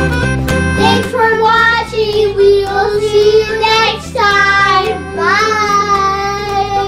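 Children singing a few long, drawn-out notes that slide up and down in pitch, over background music with a steady beat.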